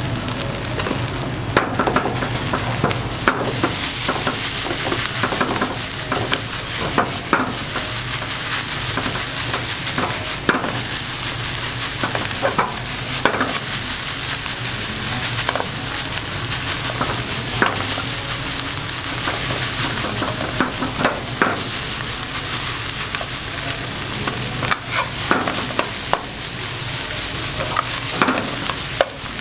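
Fried rice sizzling in a nonstick frying pan over a gas flame while a stainless steel ladle stirs and scrapes through it. Frequent sharp clacks of the ladle against the pan sound over the steady sizzle.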